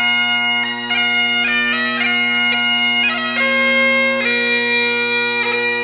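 Bagpipe music: steady drones under a chanter melody stepping from note to note.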